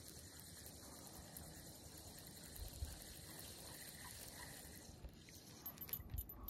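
Very faint ambience with a few soft low bumps and light clicks, mostly near the end, as a spinning rod and reel are handled during a lure retrieve.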